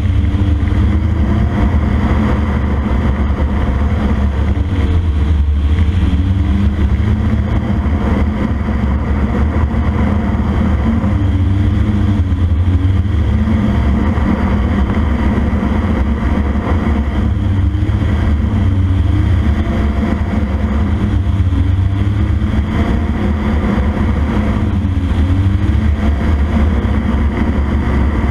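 Two-stroke engine of a CFM Shadow microlight running loudly in flight, its note wavering up and down several times rather than holding steady. This is an intermittent power loss: a broken-away condenser was bouncing on the engine, so the engine kept power only while the condenser touched it and earthed.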